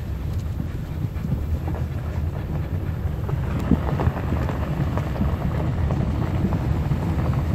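Car driving on a gravel dirt road, heard inside the cabin: a steady low tyre and road rumble with scattered small ticks and crunches from the gravel.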